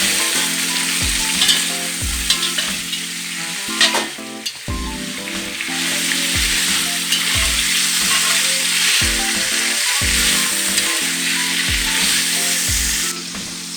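Chicken carcasses browning in a pan of hot fat, with a steady loud sizzle and the odd knock of the pan or utensil being stirred. The sizzle drops off sharply near the end. Background music with a steady beat plays underneath.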